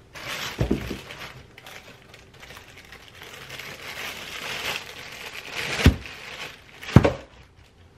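Plastic celery bag crinkling as it is handled, with a knock a little under a second in and two louder thumps about a second apart near the end.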